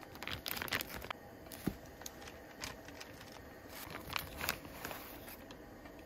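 Plastic vacuum-pack film crinkling and tearing as it is peeled off a black plastic meat tray: a dense run of crackles in the first second or so, then scattered crinkles.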